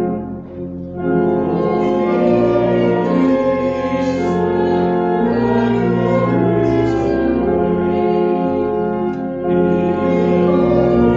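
Church organ playing a hymn in sustained chords, with voices singing along. The sound briefly drops away between lines about a second in.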